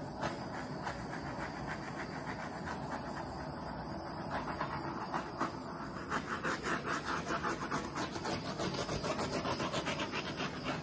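Handheld torch flame hissing steadily as it is passed over wet acrylic paint, heating the surface to bring up cells. The hiss grows more pulsed about halfway through.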